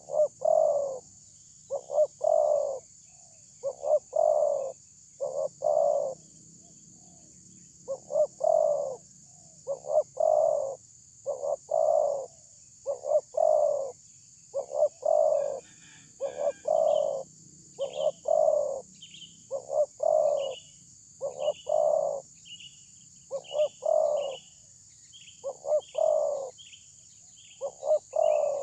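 Spotted dove cooing over and over, in phrases of two or three coos about every one and a half to two seconds. From about halfway, a small bird adds quick, short high chirps, over a steady high insect hiss.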